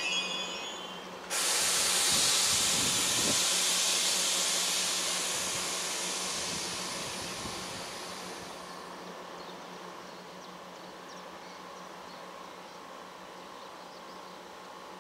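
Compressed air venting from a standing ICE high-speed train: a sudden loud hiss about a second in that fades away slowly over several seconds.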